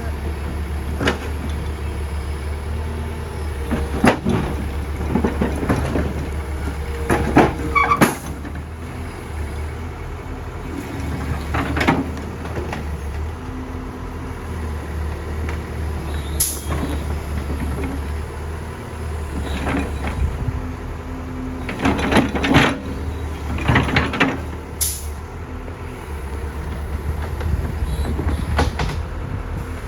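Heavy diesel engine running steadily, with irregular metallic clanks and knocks over it, several in quick succession around 22 to 24 seconds.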